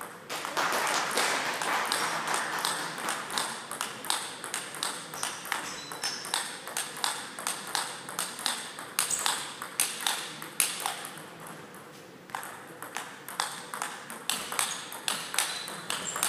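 Table tennis balls clicking off the table and rackets in rallies, several clicks a second, with a brief lull about twelve seconds in.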